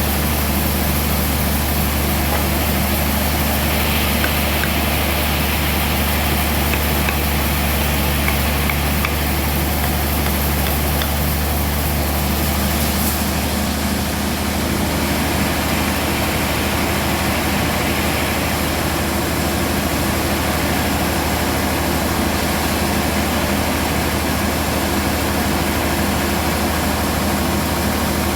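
Band sawmill running steadily: a loud, even low drone with a hiss above it.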